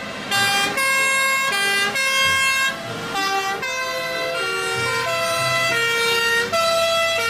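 Fire engines in convoy sounding two-tone sirens, the pitch stepping up and down about every half second, with more than one siren overlapping at different pitches.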